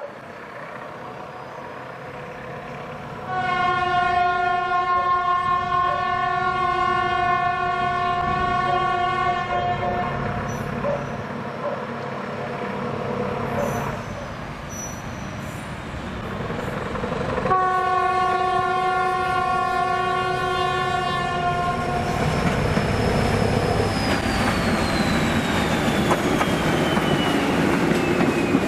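SM42 diesel-electric shunting locomotive sounding two long blasts on its horn, then pulling away with a short train of ballast hopper wagons. The engine and the rolling wagons grow louder towards the end, with a falling whine.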